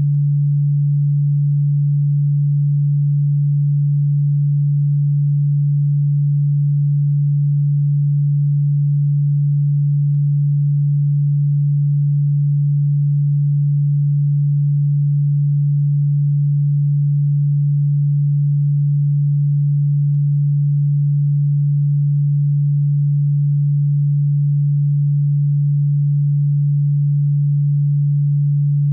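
A steady, unchanging low pure tone, heard as a deep hum. It is an electronically generated sine tone played as a cockroach-repellent sound, and despite the "ultrasonic" label it is low-pitched and plainly audible.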